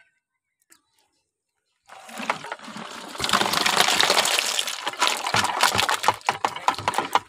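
Water and a catch of small fish and crabs poured into a plastic bucket, starting about two seconds in: a loud gush and splash of water, followed by quick, irregular splashes as the catch settles in the water.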